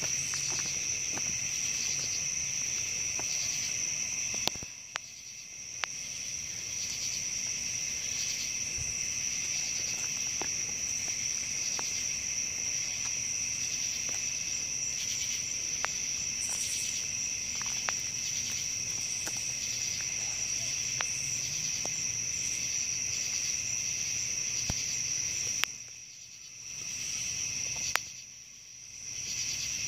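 Crickets and other night insects chirring steadily in a dense chorus, with a few sharp clicks; after some of the clicks the chorus briefly drops away, about four seconds in and twice near the end.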